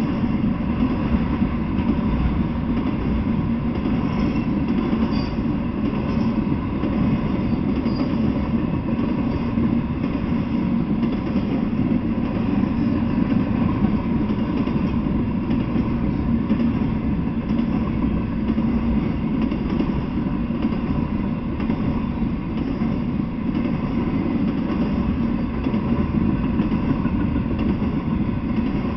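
Cars of an intermodal freight train, loaded with containers and trailers, rolling past on the rails: a steady, unbroken rumble of steel wheels on track.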